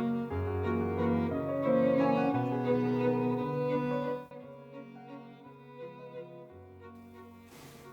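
Background music with sustained bowed-string notes over a low bass line; about four seconds in it drops to a much quieter, sparser passage.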